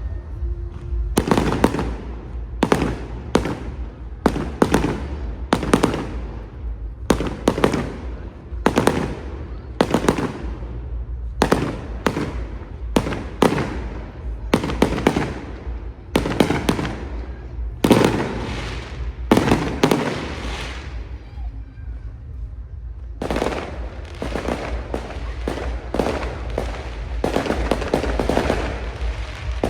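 Fireworks display going off: a long series of sharp bangs, about one to two a second, each trailing off in a short echo. The bangs thin out about two-thirds of the way through, then come back thick and fast.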